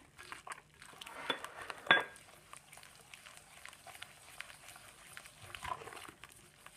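A bare hand squishing and swirling chunks of softened butter into beaten eggs and sugar in a glazed earthenware dish: wet squelching with many small clicks, and a sharp knock about two seconds in.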